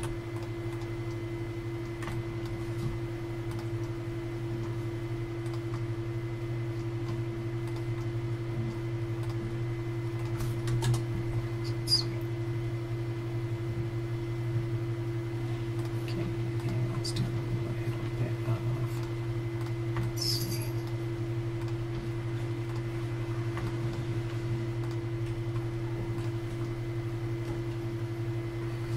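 Scattered clicks of a computer mouse and keyboard over a steady low electrical hum, with a couple of sharper clicks about eleven and twelve seconds in.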